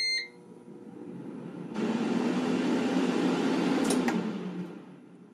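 Ninja Foodi Dual Zone air fryer: a short electronic beep from its control panel, then its fan starts and runs with a steady whoosh and a low hum. A button click comes about four seconds in, and the fan winds down near the end.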